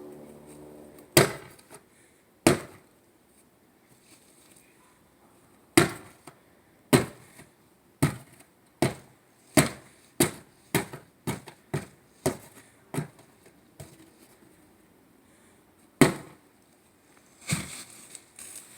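A water heater box being smashed: a series of sharp knocks and crunches, scattered at first, then a quick run of blows at about two a second, then a last few.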